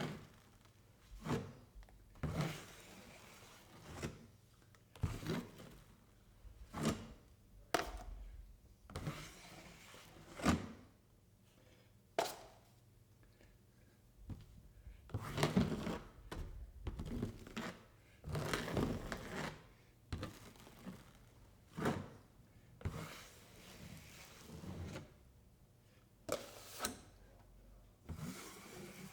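Drywall knife working joint compound over a round corner bead: short, irregular scraping strokes with knocks, about one every second or two, and a run of longer scrapes around the middle.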